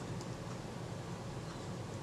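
Faint handling of the Synchro-Compur shutter's aperture scale ring by fingers, a few light ticks over a steady low background hum.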